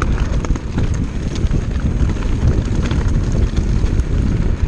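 Orbea Laufey hardtail mountain bike riding over a rocky dirt trail: steady tyre rumble and wind buffeting the microphone, with frequent small clicks and rattles as the bike runs over stones.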